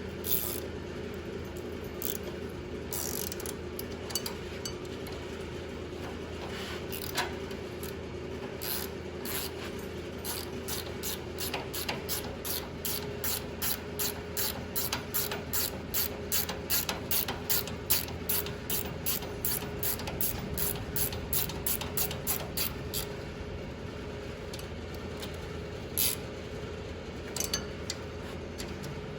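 Hand ratchet wrench clicking as it is turned, a few scattered clicks at first, then an even run of about two to three clicks a second through the middle, over a steady low hum.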